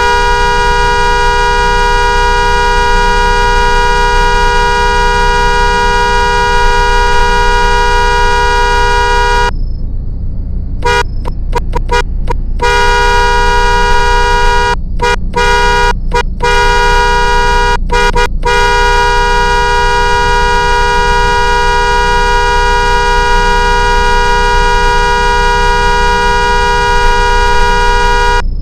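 2009 Mitsubishi Galant's two-note car horn held down in a long angry honk, broken about ten seconds in by a pause and a run of quick short taps, then held again with a few more brief breaks until almost the end. A steady low rumble runs underneath.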